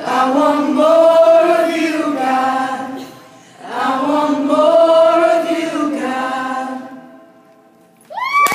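A group of voices singing a worship song in harmony: two long held phrases, the second fading away near the end. Just before the end a crowd breaks into high-pitched screaming and cheering.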